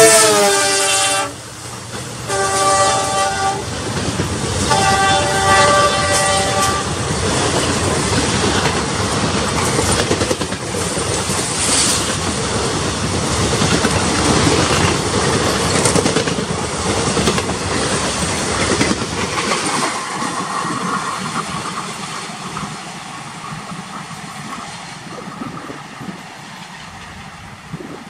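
WDP4D diesel locomotive's multi-tone horn sounding as it passes, its pitch dropping, then two more long blasts. Coaches of an express train rolling past at speed, wheels clattering over rail joints, fading away as the train recedes.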